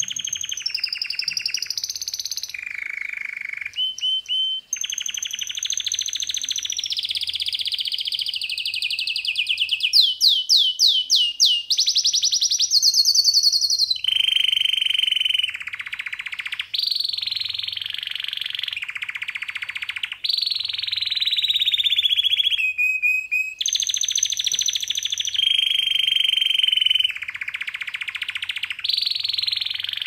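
Male domestic canary singing a long, almost unbroken song of fast trills and rolls, with steady held whistled notes between them.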